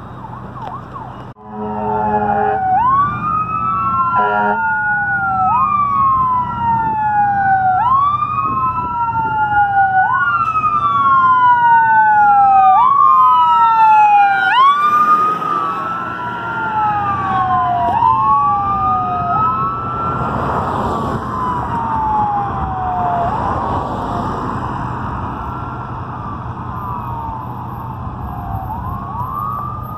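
Ambulance siren wailing, each cycle rising quickly and falling slowly about every two and a half seconds. It grows louder as the ambulance approaches and passes, then fades as it drives away. There are short horn blasts near the start.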